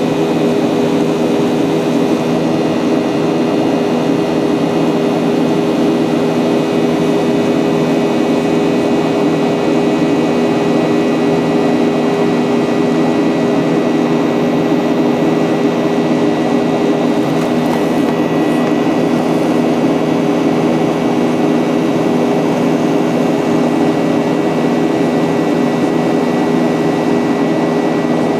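Cabin noise inside a Boeing 737-800 airliner: its CFM56 jet engines and the rush of air give a steady, even hum with a few held tones.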